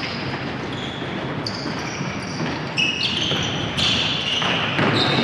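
Futsal on a wooden gym floor: sneakers squeaking in short, high-pitched squeals as players turn and stop, with occasional knocks of the ball being kicked and bouncing.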